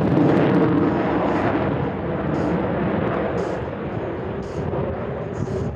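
Jet noise from an F-22 Raptor's twin Pratt & Whitney F119 afterburning turbofans as it makes a demo pass overhead: a loud, deep rumble that peaks near the start and slowly fades.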